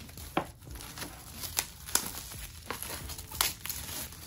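Clear plastic shrink-wrap crinkling as it is peeled off a screen-protector pack and crumpled in the hand, with irregular sharp crackles.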